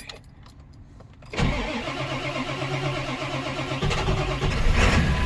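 Ford F450's Power Stroke diesel being cold-started: the starter cranks it for about two and a half seconds, then the engine catches, revs up briefly and settles into a steady idle. After a week sitting in freezing weather it starts readily, a sign that the earlier hard starting may have been air leaking in at the fuel filter cap, now tightened.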